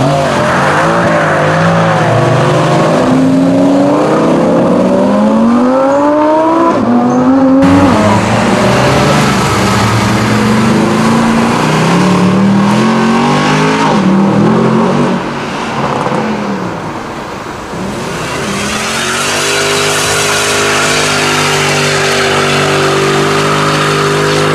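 Mercedes-AMG car engine revving hard, its pitch climbing in repeated sweeps with breaks between them, as when accelerating through gear changes. It eases off about two thirds in, then holds a steady pitch.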